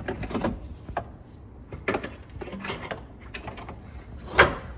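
Hard plastic coolant recovery hose being handled and fed into place under the engine: a series of irregular knocks and clicks, the loudest a sharp knock near the end.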